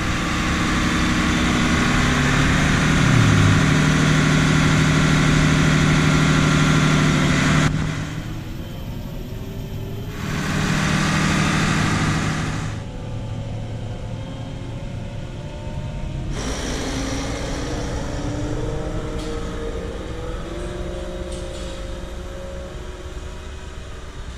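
Heavy diesel farm machinery running close by: a steady engine hum under a loud rushing noise that drops away about eight seconds in and swells again briefly around eleven seconds. After that comes a quieter engine sound whose pitch shifts and rises.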